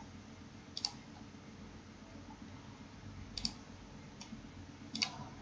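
Computer mouse clicking, three short clicks spaced about one to two seconds apart, over a faint low hum.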